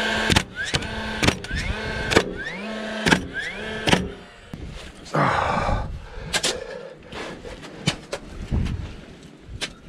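DeWalt 20V MAX cordless nailer driving nails into weathered wooden fence boards: five times, about a second apart, its motor whines up and a nail fires with a sharp crack. After that comes a stretch of scraping, then scattered knocks of a long-handled tool working loose soil.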